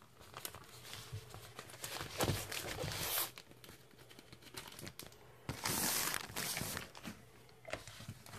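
Plastic shrink-wrap on an LP jacket tearing and crinkling as it is pulled away and the record is slid out. There are two louder crackling stretches, about two and five-and-a-half seconds in.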